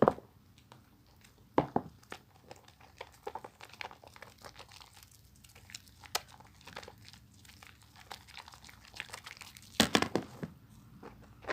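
A bar of soap being lathered by hand, giving irregular crackling and squishing, with louder bursts at the start, at about two seconds and about ten seconds in.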